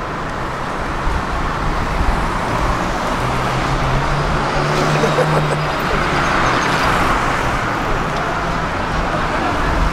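City street traffic: motor vehicles running and passing, with a steady low engine hum that is strongest in the middle.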